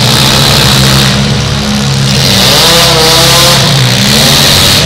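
Demolition derby car engines running loud and revving, the pitch wavering up and down.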